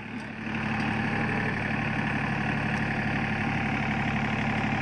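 John Deere 3025 compact tractor's three-cylinder diesel engine running steadily as the tractor drives along, its note picking up about half a second in and then holding even.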